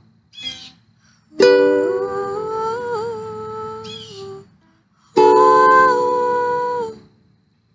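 Song: a woman's voice singing long held notes in two phrases, the first about a second and a half in and the second about five seconds in, each breaking off into a short silence.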